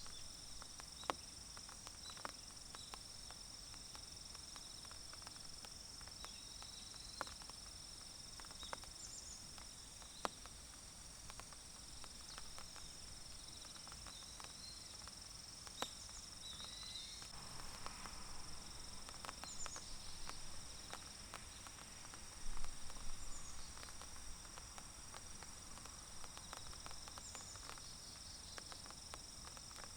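Insects trilling steadily at a high pitch, with scattered drips and ticks from light rain falling on the forest. A short louder burst of sound comes a little past two-thirds through.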